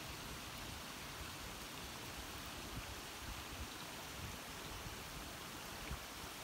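Muddy creek water running over and through a rock-and-gravel dam and woven willow beaver dam analog: a steady, soft rushing trickle.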